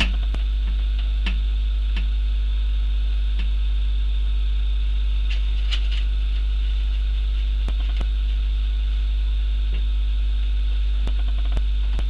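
Steady low electrical hum, with scattered small clicks as gloved hands work the throttle and kickdown cable linkage on the carburettor.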